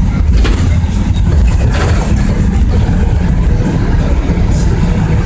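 Bus engine running, a steady low drone heard from inside the passenger cabin, with a few short clicks and rattles.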